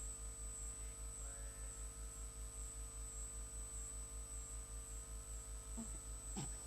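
Faint steady electrical hum from a sound system, a low drone pulsing at an even rate, with a thin high whine above it. A brief small sound comes near the end.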